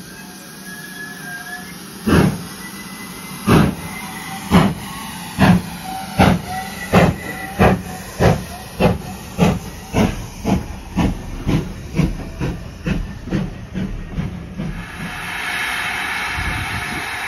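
Steam locomotive 9351 starting its train away: sharp exhaust chuffs, slow at first and quickening steadily to about three a second, then giving way to a steady hiss near the end.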